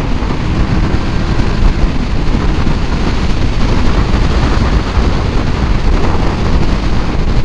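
Steady wind rush buffeting the microphone of a Kawasaki Ninja 650 sport bike at highway cruising speed, with the motorcycle's engine and road noise running under it.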